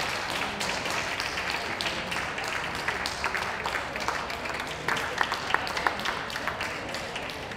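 Audience applauding: a dense patter of hand claps that slowly thins and fades, with a few louder single claps partway through.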